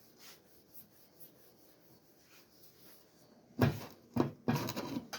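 Faint rubbing at first, then, about three and a half seconds in, a loud clatter of objects being handled: two sharp knocks followed by a short rattling scrape.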